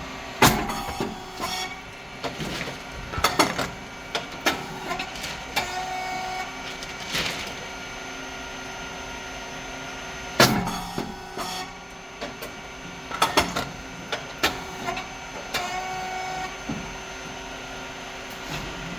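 Puffed rice cake machine running production cycles: a sharp pop about half a second in and again about ten seconds later, as the heated mould opens and the cake puffs, with lighter clacks of the moulds and cylinder moving in between. A steady hum from the motor and pump runs underneath.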